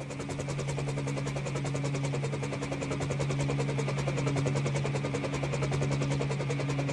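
Helicopter sound effect: a fast, even rotor chop over a steady low engine hum. It starts suddenly and grows a little louder over the first couple of seconds, as a test sound for moving audio across surround speakers.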